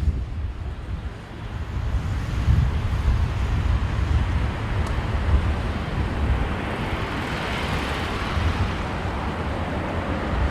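Steady rush of jet engine noise from an Airbus A350-900's Rolls-Royce Trent XWB engines during take-off, with gusty wind buffeting the microphone. The engine rush grows a little past halfway.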